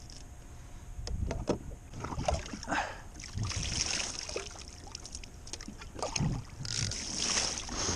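Seawater splashing and sloshing in several bursts as a gutted mackerel is rinsed over the side of a kayak, with a few sharp knocks of handling near the start.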